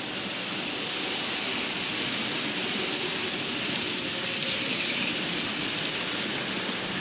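Several N-gauge model trains running on a quadruple-track layout: a steady rushing whir of their motors and wheels on the rails, growing a little louder about a second in.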